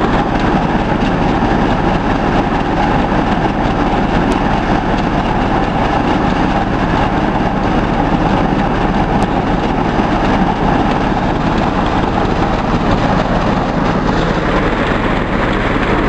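Motorised rice thresher running steadily under load, its engine and threshing drum turning as rice stalks go through. The noise is loud and even, with no change in speed.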